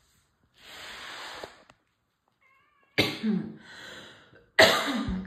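An agitated domestic cat hissing, then giving two loud growling yowls, the second the loudest: the sounds of an angry, defensive cat.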